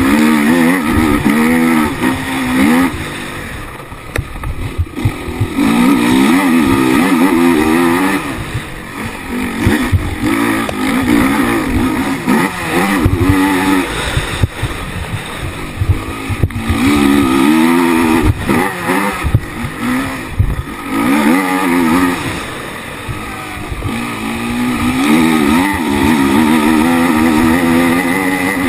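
Racing quad's engine heard from on board, revving up and falling back again and again as it accelerates down the straights and shuts off for the turns, with wind noise on the microphone and an occasional knock over the engine.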